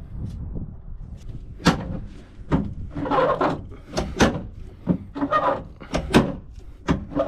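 Seized hood latch of a 1948-50 Packard being worked back and forth: a series of sharp metal clicks and clunks, with two longer rubbing stretches, as the latch moves but is still stiff.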